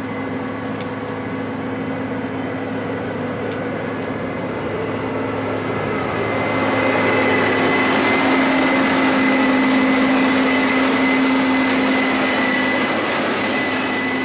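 Large diesel farm machine running under steady load, with a constant high whine over a low hum. It grows louder about halfway through, as if coming close, then eases slightly near the end.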